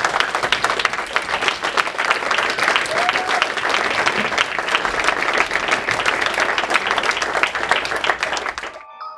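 Audience applauding, dense clapping from a roomful of people after a talk. The applause cuts off abruptly near the end and a chiming music tune begins.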